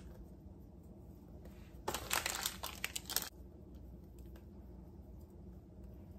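Crinkling of a Reese's peanut butter cup wrapper being opened, a crackly rustle lasting about a second and a half, starting about two seconds in.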